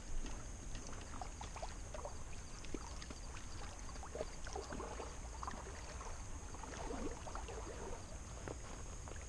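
Water sloshing and splashing in irregular bursts around the legs of a person wading through shallow bay water.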